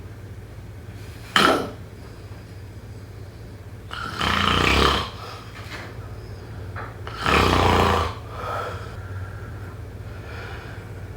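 A person snoring loudly: a short snore about a second and a half in, then two longer snores of about a second each, with softer breathing snores between. A steady low hum runs underneath.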